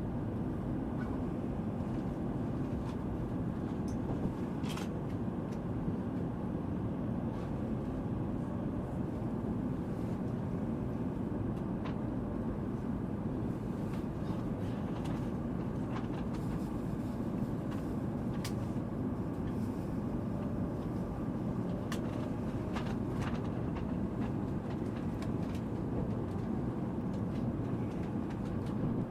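Steady low rumble of interior running noise inside a Shinkansen bullet-train passenger car, with a few faint clicks.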